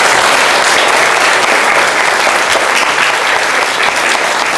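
Audience applauding, loud and steady, a dense patter of many hands clapping at once.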